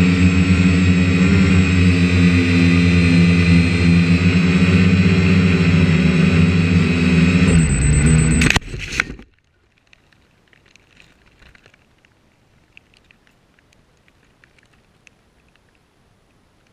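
Quadcopter's electric motors and propellers running steadily at high speed in flight, then a brief clatter as it crashes into brush about eight seconds in, and the motors stop dead. Afterwards only faint ticks are heard.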